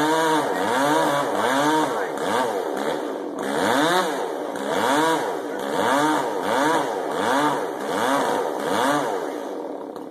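Two-stroke chainsaw engine revving up and dropping back over and over, roughly once a second. It falls to a lower, steadier level near the end.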